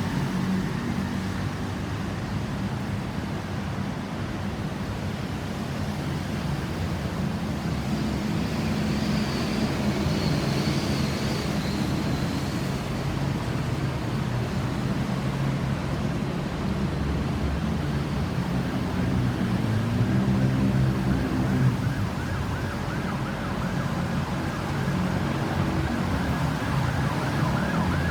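Road traffic with vehicle engines running, joined about three-quarters of the way in by an ambulance's electronic siren in a fast warble that grows louder toward the end.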